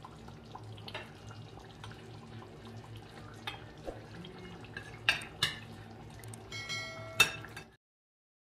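A metal spoon clinking and scraping against an enamelled cast-iron pot as chicken meatballs are spooned into simmering stew, with wet plops and a steady low hum underneath. There are a few sharper clinks in the last few seconds, one of them ringing briefly, then the sound cuts off.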